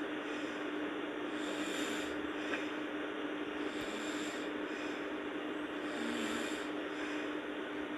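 A sleeping person snoring softly, a breath about every two seconds, over a steady hiss and low hum.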